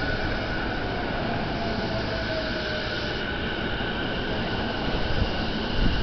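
Electric commuter train cars rolling close past a station platform: a steady rumble of wheels on rails with a high steady whine running through it.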